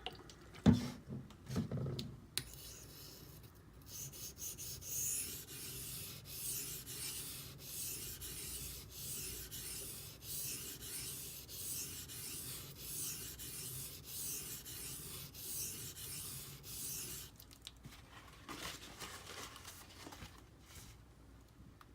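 A D2 steel knife blade stroked back and forth across a 1000-grit silicon carbide sharpening stone, making a rhythmic, gritty scraping. The scraping is preceded by a sharp knock less than a second in, and the strokes stop a few seconds before the end.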